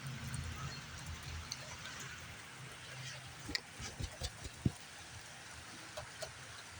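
Steady hiss of heavy rain falling, with a low rumble of wind in the first couple of seconds and a scattering of sharp taps of drops striking close by, most of them a little past the middle.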